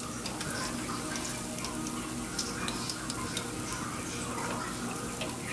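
Hot oil sizzling steadily in an electric deep fryer, with a basket of fried chicken wings draining above it.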